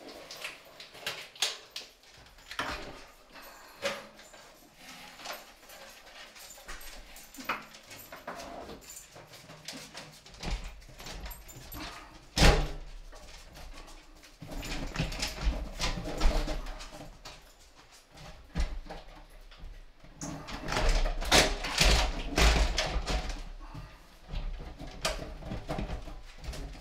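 A stainless steel kitchen sink being set into a countertop cutout and shoved and worked by hand: irregular clunks, knocks and scraping of metal on the counter, with one sharp knock about halfway through. The sink will not drop in because the mounting clips fitted beneath it catch on the edge of the cutout.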